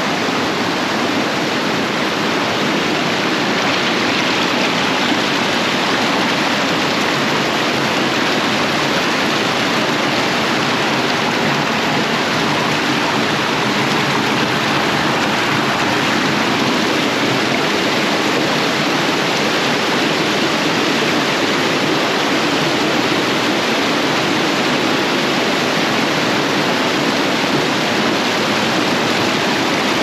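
Steady rush of flowing water from a rocky stream, even and unbroken throughout.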